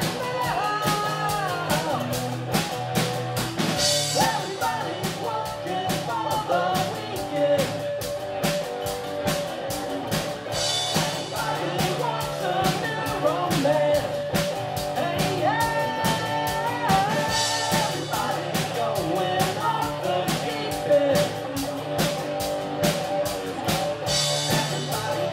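Live rock band playing: acoustic and electric guitars over a drum kit keeping a steady beat, with a cymbal crash about every six or seven seconds.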